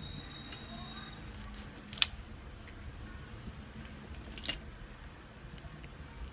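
Small plastic building bricks clicking as they are handled and pressed together, with a sharp click about two seconds in and a cluster of clicks about four and a half seconds in, over a low steady hum.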